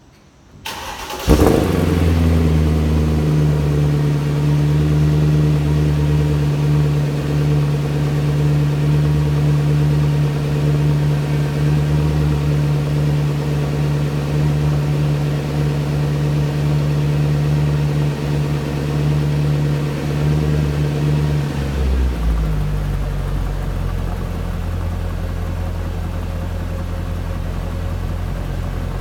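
Mercedes-Benz R63 AMG's 6.2-litre V8 cold start: the starter cranks briefly, the engine catches with a rev flare, then settles into a high, steady fast idle. About 22 seconds in, the idle drops to a lower, steadier pitch as the cold-start fast idle comes down.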